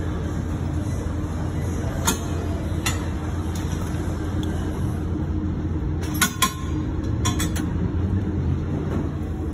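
Steady low rumble of gym room noise, with a few sharp metallic clicks and clinks from a hip abduction machine's weight stack and frame, a brief cluster of them with a short ringing about two-thirds of the way through.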